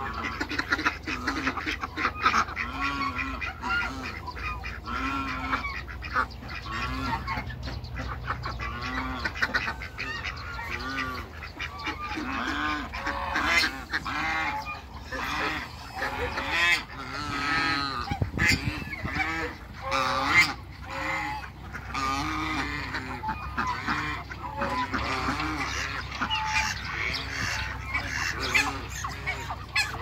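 A large mixed flock of domestic waterfowl calling nonstop, with many overlapping quacks and honks.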